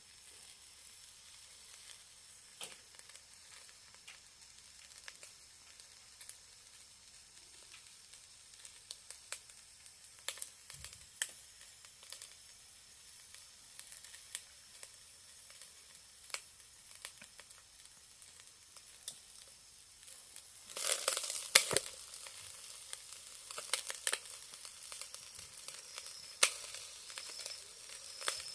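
Chicken thigh sizzling over a charcoal shichirin grill, a faint steady hiss with scattered crackling pops. About three-quarters of the way through the sizzling flares up louder and denser for a second or two.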